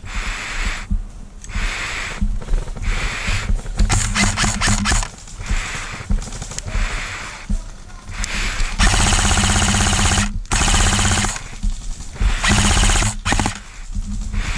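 Airsoft electric rifles firing full-auto bursts, a rapid even chatter of shots. There are several bursts, the longest just past the middle, lasting about a second and a half.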